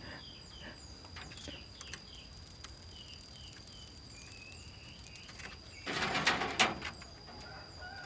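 Caged lovebird giving a run of short, high, falling chirps and then a longer call, followed about six seconds in by a sudden flurry of wing flapping and scuffling against the cage as it reacts angrily to a poking finger.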